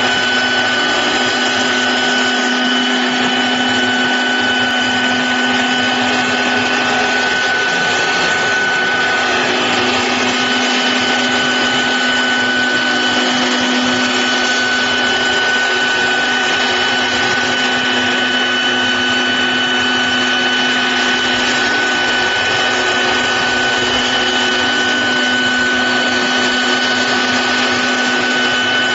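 Four-axis stone CNC router running: a steady high spindle whine over a constant hiss of noise, with a lower hum beneath, all at an even level.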